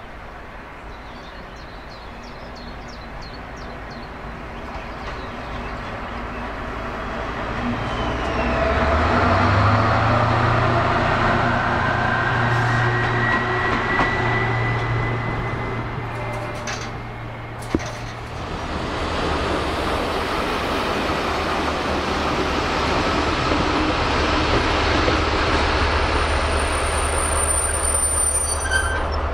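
Diesel works shunting locomotive running past at low speed, its engine drone swelling about a third of the way in and fading again, with a thin wheel squeal in the middle. After a sharp click, the steady sound of another diesel locomotive running takes over for the rest.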